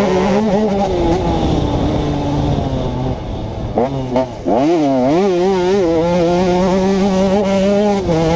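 2011 KTM 150 XC two-stroke single-cylinder engine at high revs. The revs ease off about a second in, there are a few quick throttle blips just before the middle, and then it pulls at steady high revs.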